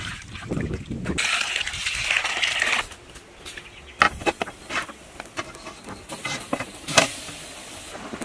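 Reddish spice liquid pouring from a steel bowl into a large cooking pot of pork pieces, a splashing pour for about two seconds. After that come scattered knocks and clicks, with one sharp knock near the end.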